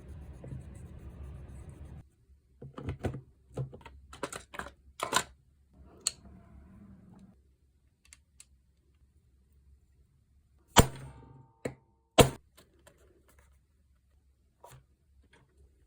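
A steady hiss that stops about two seconds in, then irregular clicks and knocks of hard plastic and metal parts being handled while a Makita power tool is worked on. Two loud sharp clicks come near the middle.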